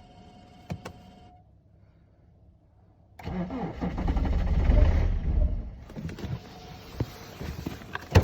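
BMW engine starting about three seconds in and running for a couple of seconds before it dies away: the engine fires but won't keep running. A few faint clicks come before it, and scattered clicks follow.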